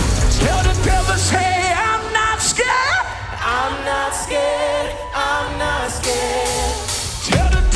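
Live band music with singing: wavering, sliding vocal lines over the backing instruments. The heavy bass fades out about a second in and returns near the end.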